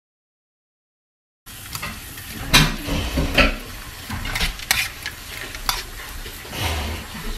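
Frozen mixed vegetables sizzling in a dry frying pan as their moisture cooks off, stirred with a spatula. Sharp scrapes and knocks of the spatula against the pan come over the sizzle. Everything starts about a second and a half in, after silence.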